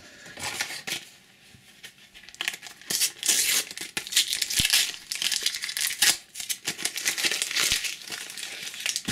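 A Panini sticker packet being torn open and crinkled in the hands, with a handful of stickers shuffled and set down: uneven dry rustling and crinkling with a few light taps.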